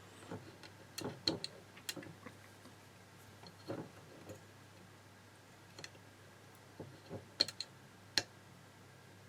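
Light, irregular clicks of the Seagate ST30810A hard drive's head actuator arm being moved by hand against its parking stop and magnetic latch: several single ticks a second or more apart.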